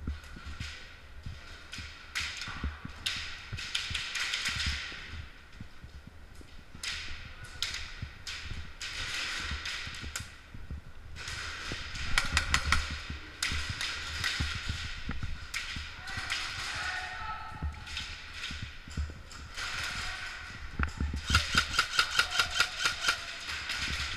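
Airsoft electric rifle (VFC HK416) firing strings of rapid, evenly spaced shots, loudest about twelve seconds in and again in a long run near the end, with scattered single shots and clatter between.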